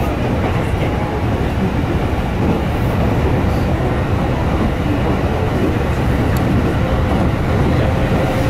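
Steady running noise of an electric commuter train at speed, heard from inside the passenger cabin: a continuous low rumble of wheels on rails.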